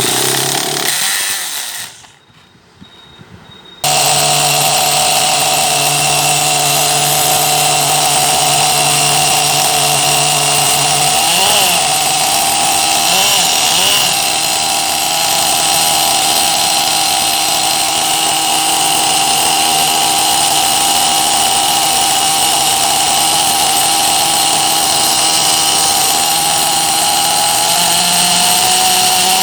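HPI Savage XL nitro RC truck engine cold-started with a drill starter: a short first try, then about four seconds in it catches and runs steadily with a heavy note, blipped a couple of times around twelve to fourteen seconds in and picking up slightly near the end. It runs cleanly after sitting unused, with no faults.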